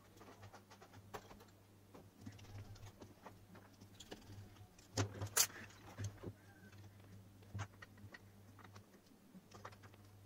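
Black plastic torch housing being handled and pressed closed: scattered clicks and knocks of hard plastic, with a louder clatter about five seconds in.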